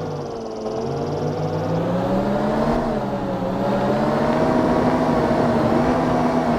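Battery-powered toy JCB running, its small motor and gears giving a steady whine that wavers slowly in pitch, dipping briefly near the start.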